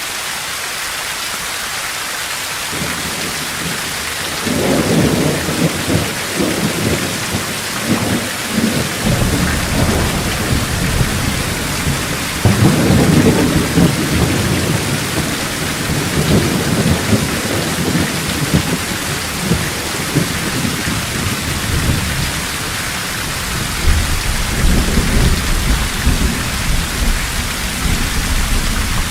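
Thunderstorm: steady heavy rain with rolling thunder. Low rumbles come in about four seconds in, again around twelve seconds, and once more near the end.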